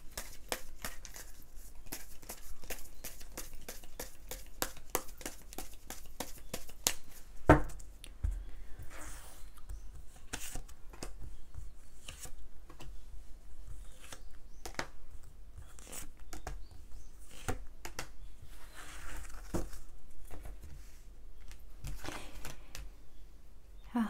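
Tarot cards being shuffled by hand, a fast run of card flicks for about seven seconds, then a thump about seven and a half seconds in. After that come sparser clicks and soft swishes of cards being slid out and laid down as extra cards are drawn.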